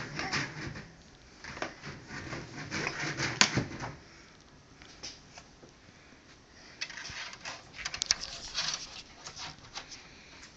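Handling noise: scattered light clicks, taps and rustles from a plastic DVD case being carried and handled, in two clusters with a quieter stretch between them.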